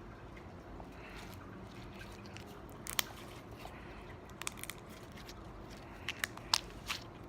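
Clear glitter slime being squeezed and stretched by hand, giving scattered sharp little clicks and pops, one about three seconds in and a cluster near the end.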